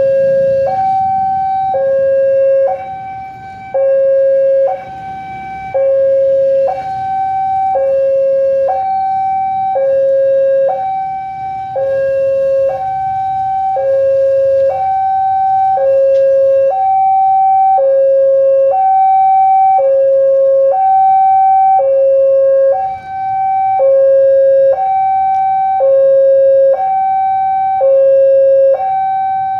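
Railway level-crossing warning alarm, a generic market-bought unit, sounding a hi-lo two-tone signal: a higher and a lower tone alternate, each held for about a second.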